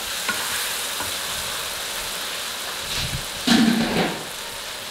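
Tomato-and-spice masala sizzling steadily as it fries in oil in a wok, now cooked down, stirred at first with a wooden spatula, with a brief louder bump about three and a half seconds in.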